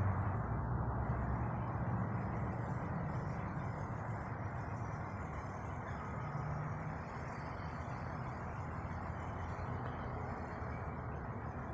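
Steady background rumble of distant traffic, with no birdsong: a morning left quiet by the missing birds.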